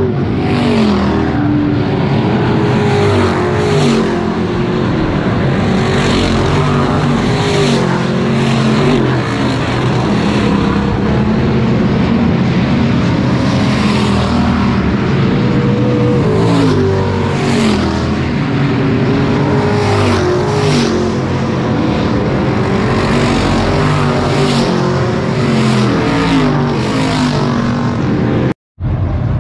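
Dirt track race cars running laps, several engines revving up and easing off over and over as they pass close by again and again. The sound cuts out for a moment near the end.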